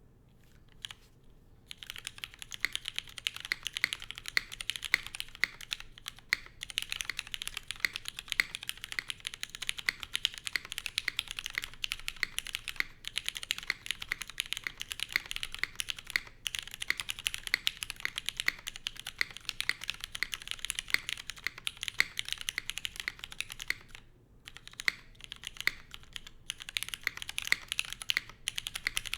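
Fast, continuous typing on a Fox Lab F80 SE mechanical keyboard with broken-in, lubed and filmed Cherry MX Hyperglide Black linear switches in an aluminium plate, under GMK keycaps. It starts with a few single key presses, runs densely from about two seconds in, and pauses briefly near the end before resuming.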